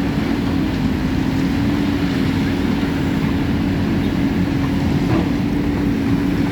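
Heavy diesel construction machinery running steadily, a continuous engine drone with an even hum.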